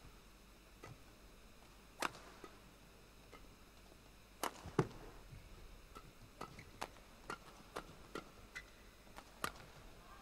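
A racket striking a shuttlecock in a badminton rally: a string of sharp pops, the loudest about two seconds in and just before five seconds, then a quicker run of lighter hits about every half second.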